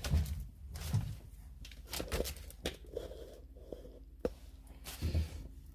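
Hands working on plastic fridge parts: rustling and crinkling, like film or stickers being handled and peeled, with a few sharp clicks and knocks, over a steady low hum.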